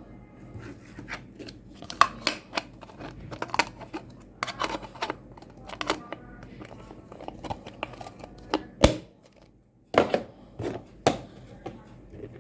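Irregular clicks, taps and rustling of small objects being handled, with a brief gap of near silence about nine seconds in.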